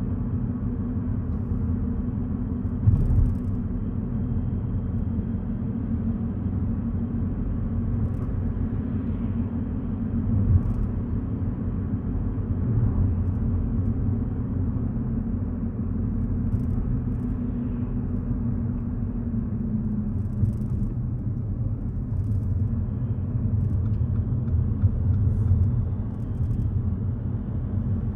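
A car driving along the road, as picked up by a dashcam's microphone: a steady low rumble of engine and tyre noise, with a short thump about three seconds in and another about ten seconds in.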